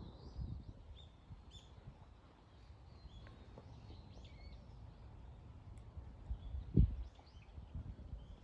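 Small birds chirping and twittering in short up-and-down calls, over a low rumble with scattered low thumps, one louder thump near the end.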